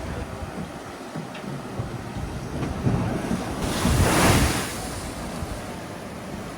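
Wind buffeting the microphone over the wash of sea surf, with a louder rush that swells and fades about four seconds in.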